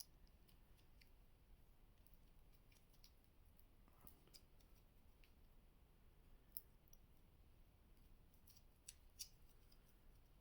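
Near silence with scattered faint small clicks and ticks, as of hands handling small plastic items such as an earbud case and its packaging; a few sharper clicks stand out past the middle and near the end.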